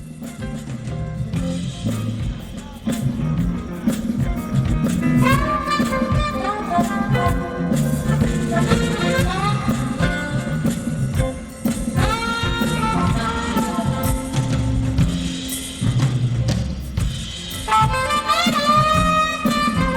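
Instrumental introduction of a jazz-style band with drum kit and brass, the drums keeping a steady beat under melodic lines that swell and glide.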